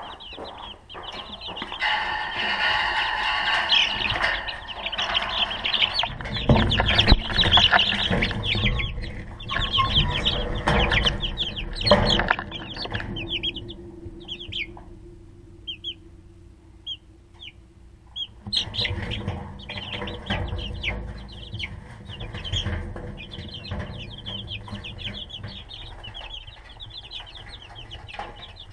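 Rhode Island Red chicks peeping constantly, many short high cheeps overlapping. Through the first half and again for a few seconds after the middle there is loud rustling and knocking as the plastic waterers are handled and set down in the brooder.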